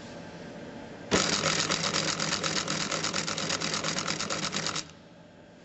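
Electric school sewing machine running, driven by its foot pedal, with a rapid even needle beat of about eight strokes a second. It starts about a second in and stops suddenly near the end. It is stitching a short distance backwards and forwards to secure the end of the seam.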